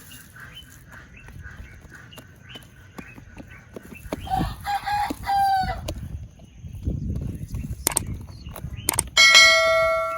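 A rooster crowing twice: a crow with a falling end about halfway through, then a louder, steadier crow near the end. Scattered sharp knocks are heard in between.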